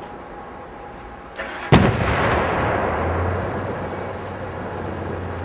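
A large aerial fireworks display shell bursting: one sharp bang about a second and a half in, followed by a rumbling echo that dies away slowly over several seconds.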